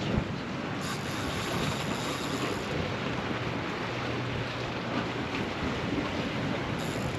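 Steady wind rushing over the microphone, with no break or change in strength.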